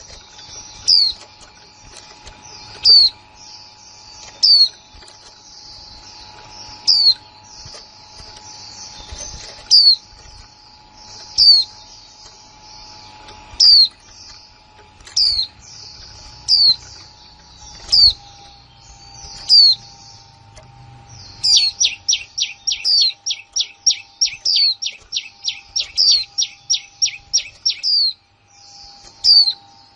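Female white-eye (khuyên mái) giving sharp, high, downward-sweeping 'kick' calls about every one and a half to two seconds over a thin twittering. About two-thirds of the way through, a fast run of about twenty calls at roughly three a second.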